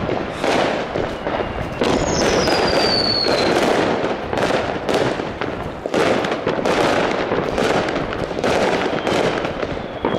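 Many fireworks going off at once: a dense, continuous barrage of bangs and crackles, with one whistling firework whose whistle falls in pitch about two seconds in.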